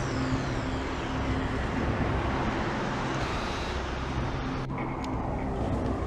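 Steady outdoor vehicle and traffic noise, a loud even hiss, over background music with sustained low notes. The hiss cuts off about three-quarters of the way through, leaving the music.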